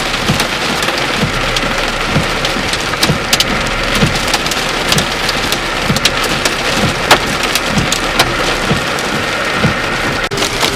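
Heavy rain pouring steadily in a severe thunderstorm, with many sharp taps of drops striking hard surfaces. The sound drops out briefly near the end.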